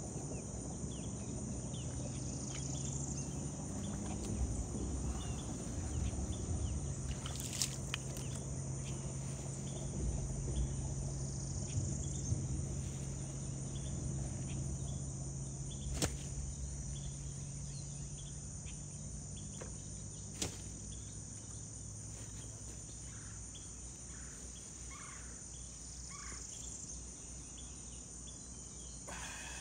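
Steady high-pitched insect chorus over a low rumbling hum that fades in the last few seconds, with a few sharp clicks.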